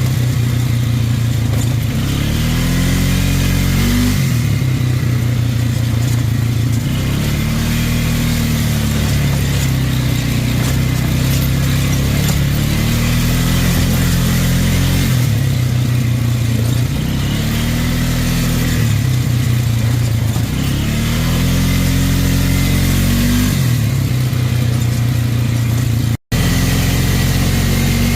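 ATV engine idling, its throttle blipped about every four seconds so that the pitch rises and falls back to idle each time. The owner says this engine was misfiring. The sound cuts out for an instant near the end.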